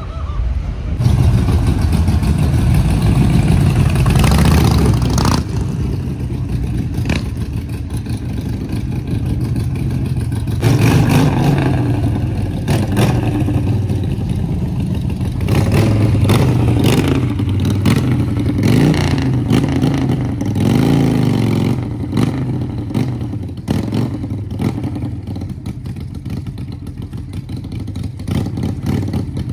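Car engines running and revving, with scattered sharp clicks.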